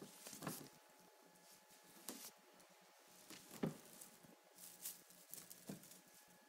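Near silence: quiet room tone with a faint steady hum and a handful of soft taps and rustles, the loudest about halfway through.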